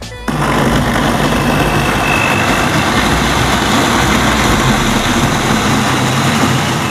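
Philips countertop blender switched on just after the start, its motor running steadily at speed while it grinds chopped shallots, garlic, turmeric, ginger, galangal and kluwek into a spice paste.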